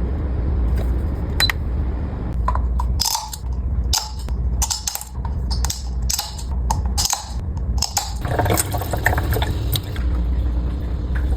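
Kitchen clatter during meal prep: dishes and utensils clinking and knocking, a quick run of them in the middle, over a steady low rumble.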